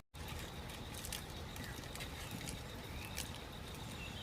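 Forest ambience: a steady background hiss with a faint steady high tone, scattered sharp clicks and a few short bird chirps.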